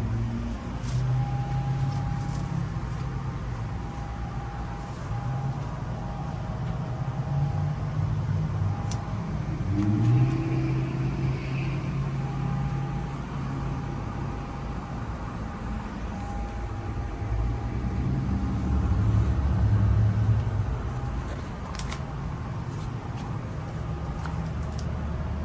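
Outdoor central air conditioner condensing units running: a steady low compressor and fan hum with a faint higher tone, swelling louder twice.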